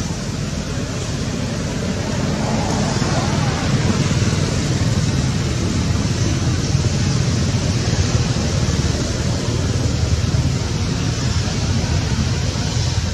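Steady outdoor background noise: a continuous low rumble with a hiss over it and no distinct events.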